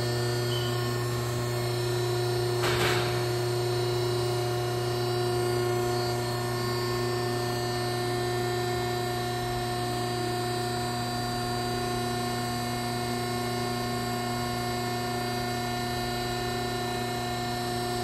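The 15 hp electric motor and hydraulic pump of an MSI 6030 vertical baler running through an empty dry cycle, giving a steady hum with a few steady tones. A brief rush of noise comes about three seconds in.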